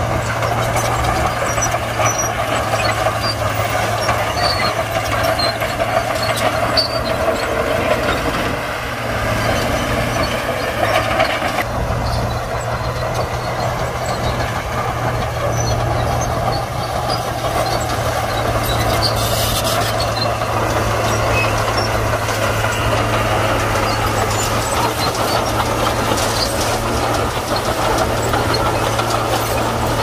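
Heavy diesel earthmoving machinery running steadily: a low engine drone that holds one pitch, dipping briefly in loudness about nine seconds in.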